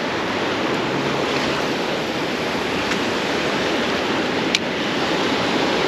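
Ocean surf washing steadily on a sandy beach, with one brief sharp click about four and a half seconds in.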